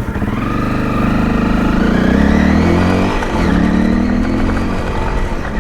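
Honda CRF250L Rally's single-cylinder engine pulling under acceleration, its pitch rising, dropping briefly a little past three seconds in, then rising again.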